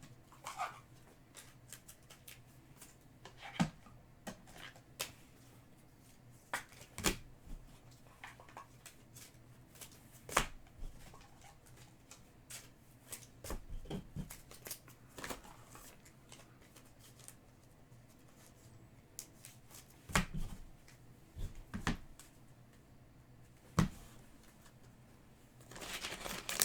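Trading cards being handled and flicked through: irregular light clicks and snaps of card stock, with a few sharper ones standing out.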